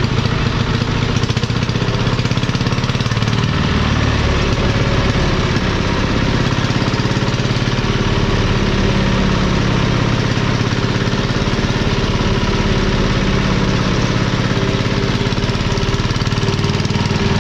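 Yanmar NS10 single-cylinder diesel engine running steadily, with an even, rapid firing beat.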